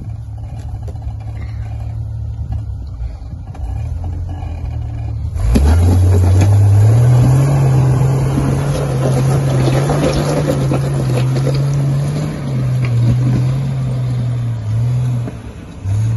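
Jeep engine idling low, then about five seconds in revving up and pulling hard under load as the Jeep climbs a steep rock slope. The revs hold high with brief dips and ease off near the end.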